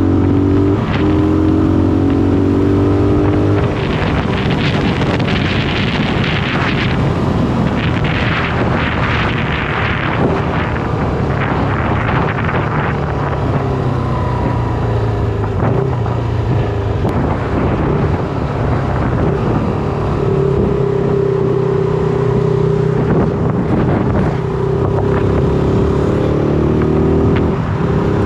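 Shineray SBM 250S motorcycle engine running under way, with wind noise on the microphone. The engine note drops about three and a half seconds in and is joined by heavier wind rush for several seconds, then holds steady and climbs slightly near the end.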